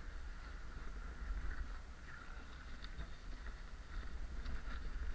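Water sloshing and splashing as someone crawls and wades through shallow cave water over gravel, with a low rumble from the camera being handled.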